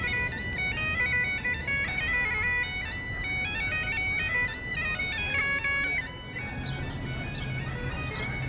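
Music: a reedy wind-instrument melody in quick stepped notes over a steady drone, bagpipe-like in character. The melody grows quieter about six seconds in while the drone continues.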